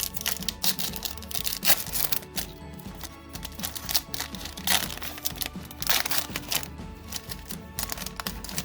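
Foil booster-pack wrapper crinkling and tearing in irregular bursts as a Pokémon card pack is opened, with background music.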